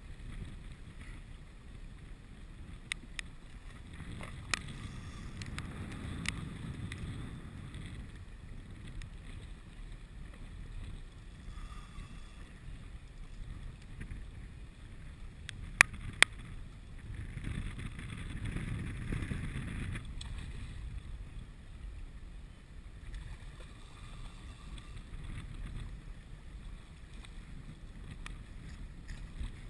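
Wind buffeting the microphone over choppy water lapping, swelling in two stronger gusts, with a few sharp clicks, two loud ones close together near the middle.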